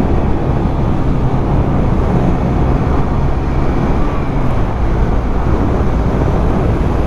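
Motorcycle riding at a steady cruising speed: the engine's steady low drone under a loud rush of wind on the microphone.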